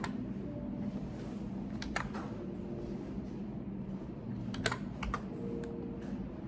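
Scattered keystrokes on a computer keyboard, a few separate clicks with a small cluster about two thirds of the way through, over a steady low background hum.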